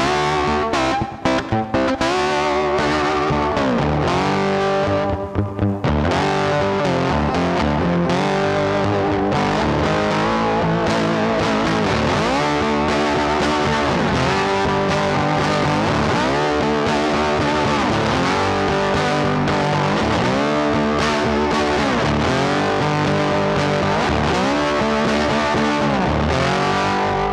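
Background rock music led by electric guitar, with a riff that repeats every couple of seconds.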